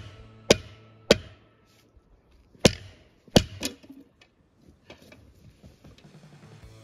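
Hammer blows driving a felling wedge into the cut: six sharp ringing strikes in the first four seconds, three about half a second apart, then a pause and three more. Quiet background guitar music runs underneath and carries on once the strikes stop.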